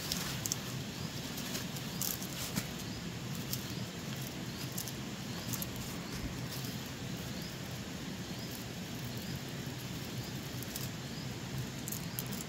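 Plant stems and fern fronds rustling and snapping with scattered light clicks as they are handled and gathered by hand, while a short, high rising chirp repeats about once a second in the background.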